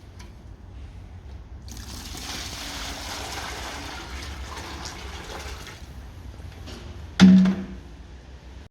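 Water rushing or pouring for about four seconds over a low hum, then one loud hollow knock with a short ringing note.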